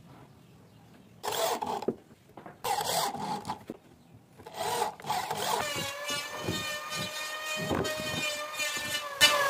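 Electric drill with a screwdriver bit driving screws into a wooden frame in three short bursts about a second apart. After that, a power tool motor runs steadily with a whine.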